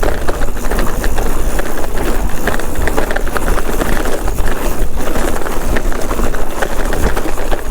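Commencal Meta HT hardtail mountain bike running fast down a dirt trail: the tyres rumble over the ground and the bike clatters and rattles over the bumps, with wind rumbling heavily on the microphone.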